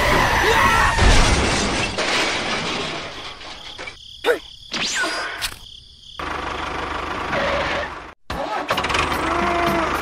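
Dubbed sound effects for toy tractors: noisy vehicle and crash sounds in the first half, with sharp sliding tones and abrupt cuts, then a steady engine hum from about the middle on, over background music.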